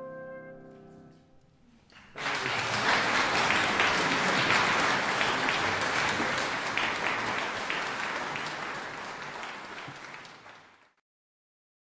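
The final held chord of flute, cello and piano dies away, and about two seconds in an audience breaks into steady applause, which fades out near the end.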